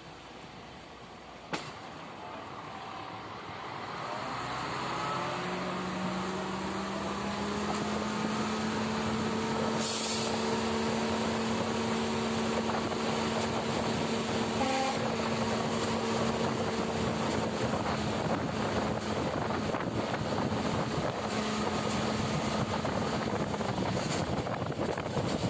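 Diesel railcar pulling away, heard from an open window: the engine's note climbs in pitch for a few seconds and then holds steady over the rumble of wheels on track and wind.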